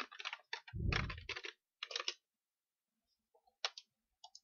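Computer keyboard typing in short bursts of keystrokes, with a brief louder, low-pitched sound about a second in, followed by a few separate mouse clicks near the end.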